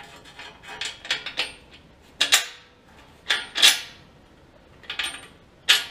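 Steel bolts and hardware being handled and fitted on a steel forklift carriage, making sharp metallic clinks and short rattles. The clinks come in uneven clusters, loudest about two and three and a half seconds in, with one more near the end.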